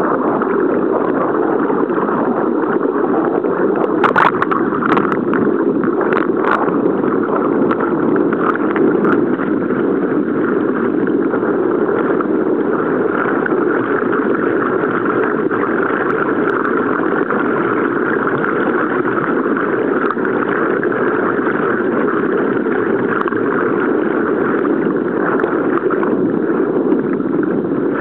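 Steady rushing drone of water and a boat's motor heard through an underwater camera housing being towed during trolling. A few brief clicks come about four to six seconds in.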